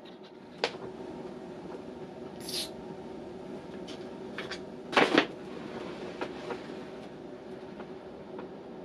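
A few clicks and knocks from a plastic syringe and stopcock being handled, with a short rustle and then the loudest short clatter about five seconds in, over a steady hum.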